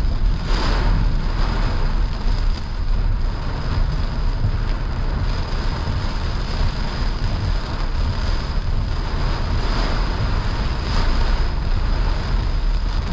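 Heavy rain on a moving car and tyres on a wet highway, heard from inside the cabin, with a steady low road rumble.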